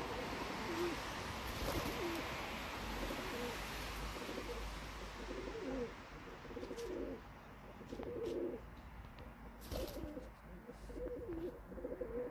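Domestic pigeons cooing: short low calls repeated every second or so, over a steady hiss that fades about halfway through. A sharp click sounds late on.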